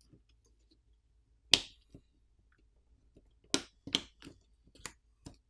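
Sharp plastic clicks and snaps as a plastic pry pick works the top plastic cover of a POCO F3 GT smartphone loose and its clips pop free: one loud snap about one and a half seconds in, then a quick run of smaller clicks near the end.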